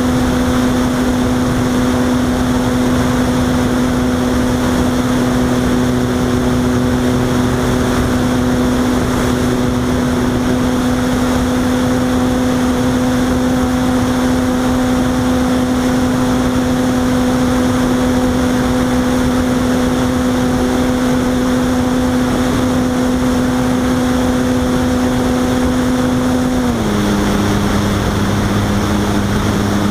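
Electric motor and propeller of a Robbe Arcus Sport RC motor glider running at a steady hum over a rush of wind; about 27 seconds in, the pitch drops a little and stays lower.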